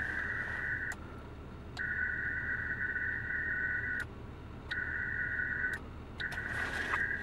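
Ham radio transceiver audio giving a steady high-pitched tone that cuts out and comes back three times, with a sharp click at each switch, over a low cab rumble.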